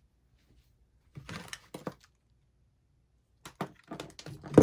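Handling noise from objects being picked up and moved: a few short rustles and light knocks about a second in, then a quick run of clicks and knocks near the end, the last one loudest.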